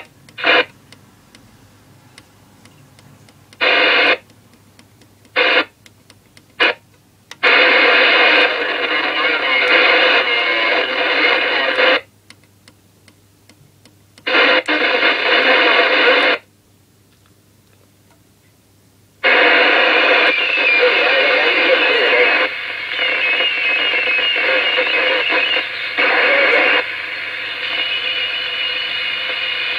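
CB radio loudspeaker as the set is stepped through channels: bursts of hissy static and indistinct transmissions cut in and out abruptly. There are short blips in the first few seconds, then stretches several seconds long with quiet gaps between.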